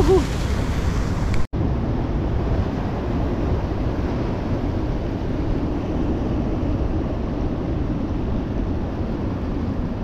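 Ocean surf breaking and washing against the rocks of a jetty, heard as a steady rushing noise with wind rumbling on the microphone. The sound breaks off for an instant about a second and a half in, then carries on as before.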